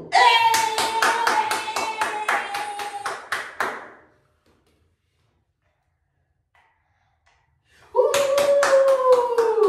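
A woman clapping her hands quickly, about four claps a second, while her voice holds one long, slowly falling note, like a drawn-out cheer. The sound cuts out completely about four seconds in, and the clapping and held voice start again near the end.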